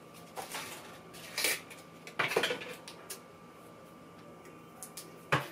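Wooden drawer-divider panels being handled and knocked together: a few short clacks and clatters, the loudest about two seconds in and a sharp knock near the end.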